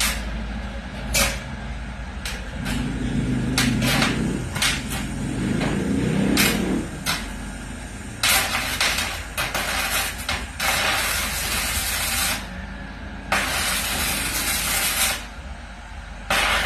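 Electric welding arc, crackling and hissing in three runs of a few seconds each, each starting and stopping abruptly, after a stretch of scattered sharp clicks and taps.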